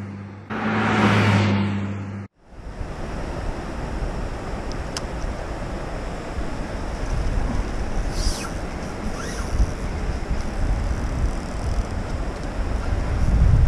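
Car road noise with two swelling whooshes for about two seconds, then an abrupt cut to steady wind buffeting the microphone over rushing river water at the bank. The wind rumble grows stronger near the end, and a few faint high chirps come through.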